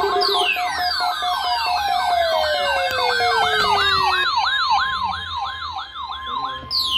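Several electronic siren sounds overlapping: a yelp sweeping rapidly up and down about three times a second, long wails gliding down in pitch over several seconds, and a steady high tone that stops near the end, just as another falling wail starts.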